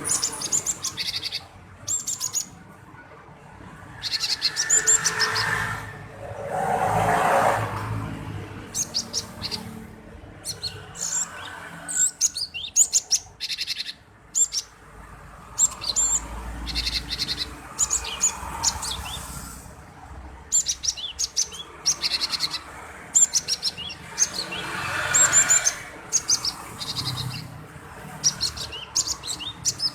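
Male cinereous tit (gelatik batu) singing vigorously: repeated bursts of short, sharp, high chirps with brief pauses between phrases.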